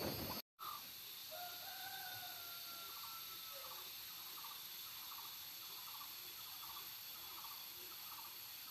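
Faint bird calls: a long, slightly falling whistled note about a second in, then soft calls repeating about twice a second over a steady hiss.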